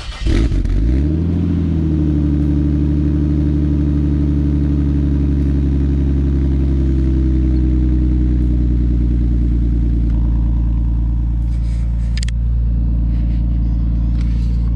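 Nissan Stagea's turbocharged RB25DET straight-six catching from the starter through its new exhaust, flaring briefly and settling within a second or two into a steady idle. A few sharp knocks come near the end.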